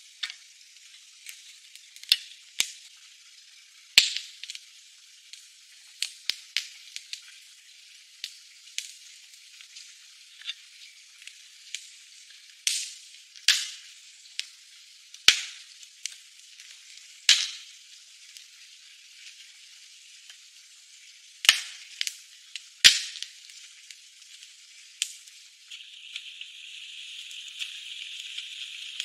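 Wood campfire crackling: irregular sharp pops and snaps, a few of them much louder, over a faint hiss. A steadier, higher hiss comes in near the end.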